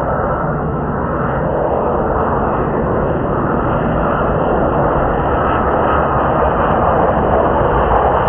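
Fixed-wing aircraft engine noise, a steady, loud rush with no clear rise or fall.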